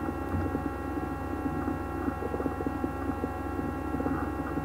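Steady electrical mains hum and buzz, with many even overtones and a fast rough pulsing, picked up by the recording setup.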